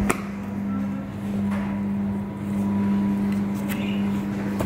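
A steady low electrical machine hum, with a few short knocks as a rack of lamb ribs is flipped over and set down on a plastic cutting board.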